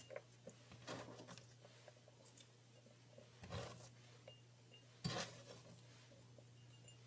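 Faint, scattered clinks and taps from a small glass bowl on a wooden cutting board as pieces of cut ginger are put into it by hand. A louder knock comes about five seconds in.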